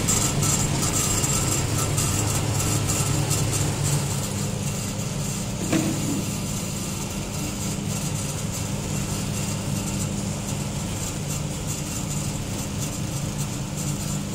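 Self-cooking rice noodle extruder running steadily while it pushes out strands of rice noodles: an even machine hum with a constant high hiss. One short knock about six seconds in.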